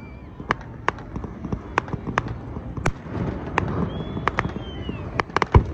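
Fireworks display: a rapid, irregular string of sharp bangs from shells and comets going off, with the loudest bang near the end. A brief falling whistle sounds about four seconds in.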